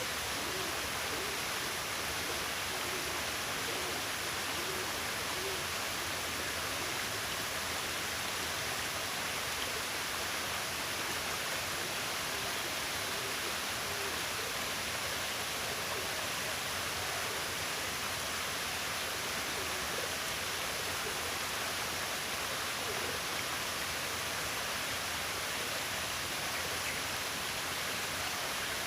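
Steady, even rushing of running water. Faint, low, repeated hooting calls sound over the first several seconds.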